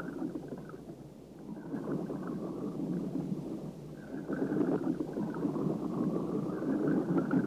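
Muffled churning and bubbling of water, an uneven wash with no tone or rhythm, dipping briefly about a second in.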